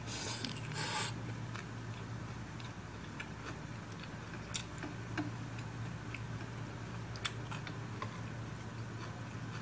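A person chewing a mouthful of rice noodles and grilled pork close to the microphone: a loud noisy burst in the first second, then scattered sharp clicks and crunches over a steady low hum.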